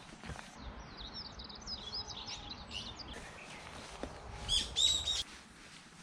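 Small birds chirping: a quick run of high twittering notes through the first half, then a few louder, clearer calls about four and a half seconds in, over a low rumble.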